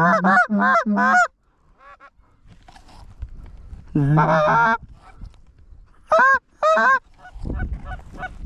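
Goose honking: a quick run of about four loud honks at the start, a longer rapid string of honks and clucks about four seconds in, and two more honks a little later.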